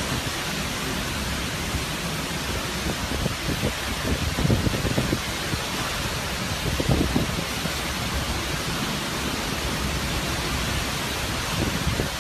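Steady hurricane rain and wind, a dense even rush with a few brief low gusts buffeting a third of the way in and again about halfway.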